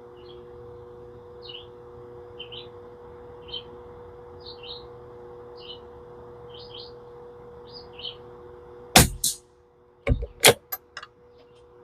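A songbird repeating a short two-note chirp about once a second over a faint steady hum. Near the end a .22 LR bolt-action rifle fires once, with a second sharp crack a split second later, followed by a few quick sharp clicks.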